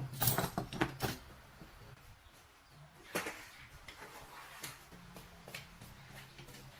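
A few sharp knocks and clicks, several close together in the first second and one more about three seconds in, over a faint low hum.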